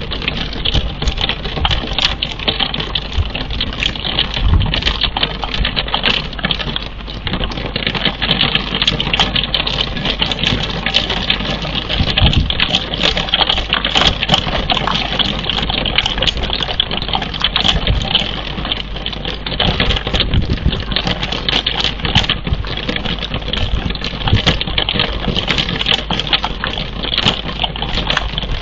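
Rain pattering on the nest box close to the camera's microphone: a dense, steady patter with irregular louder drops ticking, over a constant low rumble.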